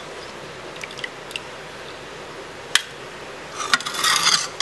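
Metal spoon clinking and scraping against a pressure cooker and a steel plate as boiled taro roots are scooped out: a few light taps, one sharp clink partway through, and a short flurry of scraping clinks near the end.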